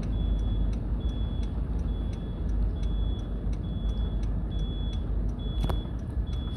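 Car turn-signal indicator ticking steadily inside the cabin, a little faster than once a second, over the low rumble of the car idling in traffic. One sharper click near the end.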